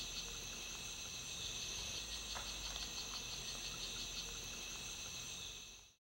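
Chorus of jungle insects: a steady high-pitched buzz layered with a pulsing trill, fading out just before the end.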